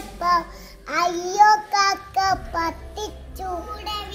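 A child singing a Malayalam song in a high voice, in short phrases of held notes with brief pauses between them.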